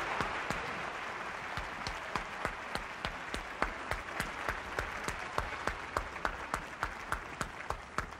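Audience applause gradually dying away, with individual handclaps about three a second standing out as the general clapping thins.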